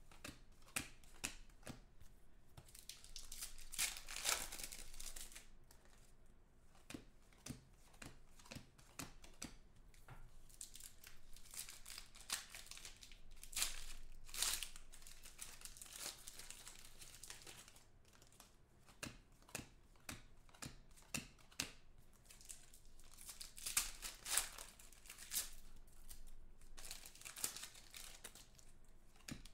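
Foil wrappers of 2014 Panini Contenders football card packs crinkling and tearing as the packs are ripped open, with short clicks and rustles from cards being handled, in several bursts of louder crinkling.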